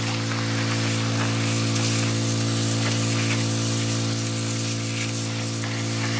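Northstar 4000 PSI pressure washer running steadily: a constant engine drone under the hiss of its high-pressure jet cutting into the dirt around oak roots.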